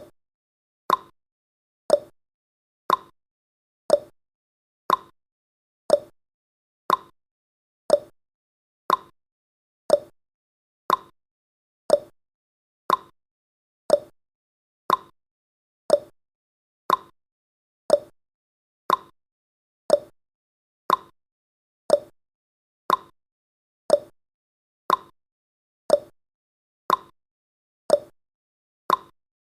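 Countdown timer sound effect: a short, sharp tick exactly once a second, marking each second of the countdown, with silence between ticks.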